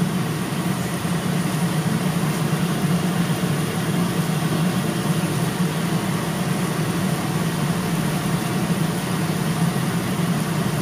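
Chicken frying in an open pan: a steady sizzle over a constant low hum.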